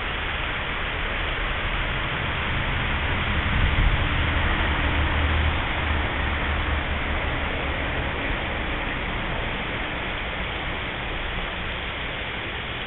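Shallow river running over a rocky riffle: a steady rushing of water, with a deeper rumble that swells about four seconds in and then eases off.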